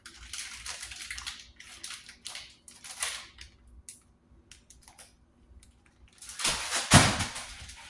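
Plastic package of sliced provolone crinkling and crackling in irregular bursts as it is pulled and twisted to get it open. Near the end there is a louder stretch of crackling with a sharp snap.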